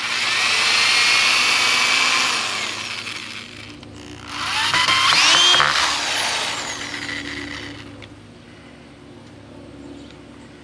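Corded electric drill running twice, about three seconds each time, its motor whine climbing at each start and falling away as it stops, boring holes through a metal hinge into a wooden board.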